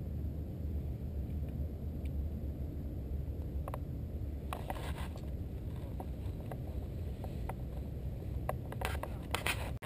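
Wind rumbling on an outdoor camera's microphone, with a few light clicks around the middle and a quick run of clicks near the end as a hand handles the camera.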